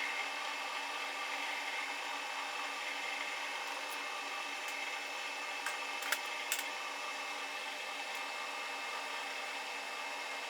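Metal lathe running while a tool bit cuts a chamfer on the aluminum handle stock: a steady mechanical hum of several tones over a cutting noise, with a couple of light clicks about six seconds in.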